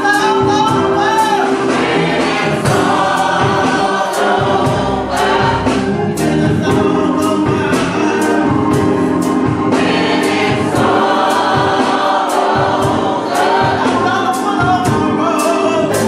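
Church choir singing a gospel song in full voice over a steady beat of about two strikes a second.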